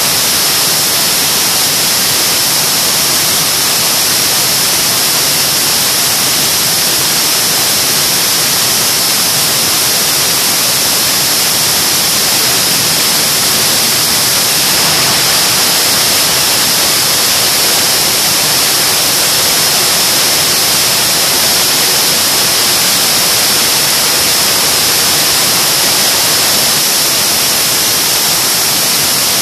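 General Electric J79 axial-flow turbojet running steadily on a test stand: a loud, even rush of jet noise with a strong high hiss, holding steady with no change in power. The enclosed test cell surrounds the sound.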